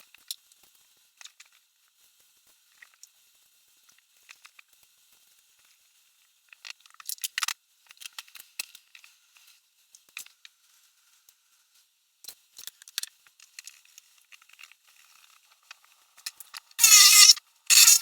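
Handling sounds from assembling a homemade air conditioner: scattered small clicks, rattles and crinkling, with two loud rushing bursts near the end.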